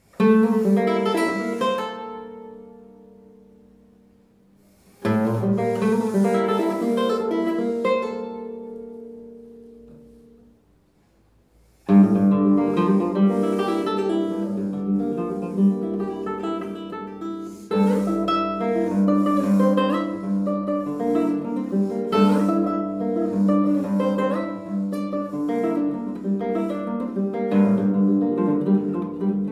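Nylon-string classical guitar played solo: a chord is struck and left to ring, dying away over about four seconds, then a second chord rings and fades. After a short silence a continuous passage of fingerpicked notes begins about twelve seconds in.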